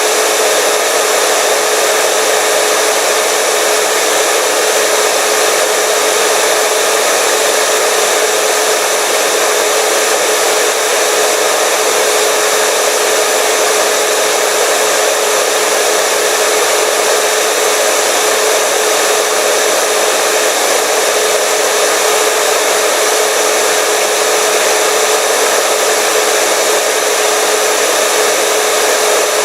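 Hair dryer running steadily: an unchanging rush of air with a steady motor hum.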